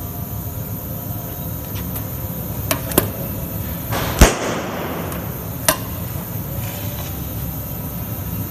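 Capacitor-discharge stud welder firing: a sharp crack about halfway through, the loudest sound, with lighter snaps a little before and after it, over a steady low hum.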